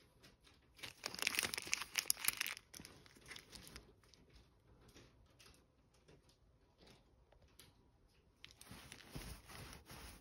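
Sticky sheet of a lint roller being peeled and torn off the roll, a loud crackling tear about a second in, followed by small ticks. Near the end the sticky roller is rolled over a blanket with a softer crackle.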